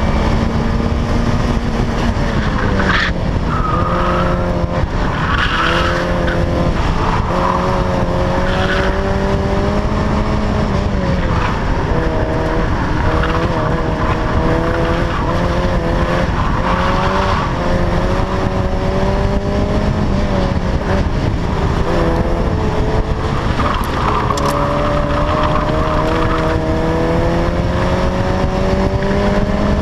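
1992 Mazda Miata's 1.6-litre four-cylinder engine run hard through an autocross course, its pitch rising and falling again and again with throttle and gear changes. Tyres squeal at times through the turns.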